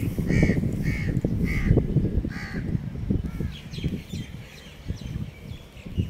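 Crows cawing: a run of harsh caws about two a second, then fainter calls about three seconds in, over a low rumble on the phone's microphone.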